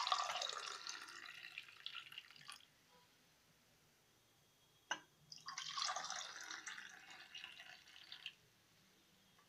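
Milk poured from a stainless-steel pot into glass tumblers, two glasses in turn: a splashing stream filling the first glass for about two and a half seconds, a single light knock about five seconds in, then a second stream filling the next glass for about three seconds.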